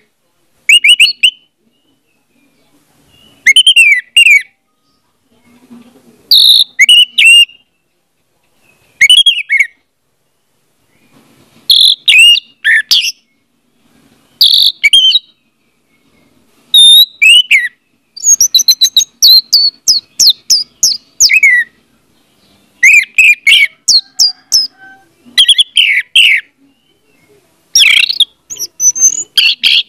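Orange-headed thrush singing: short phrases of whistled notes every couple of seconds, with a longer run of quick falling notes about two-thirds of the way through.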